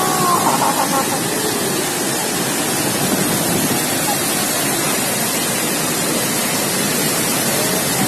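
Abbi Falls, a large waterfall in heavy flood flow, pouring onto rock and a churning plunge pool, making a loud, steady rush of water.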